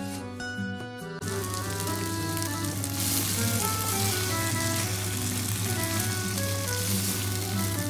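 Chicken breasts in peri peri marinade sizzling as they fry in a non-stick pan. The sizzle cuts in about a second in over light background music and grows louder a couple of seconds later.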